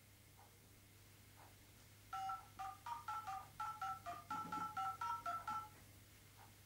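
Mobile phone keypad beeping out DTMF touch tones as a number is dialed: a quick run of about fifteen short two-note beeps, starting about two seconds in.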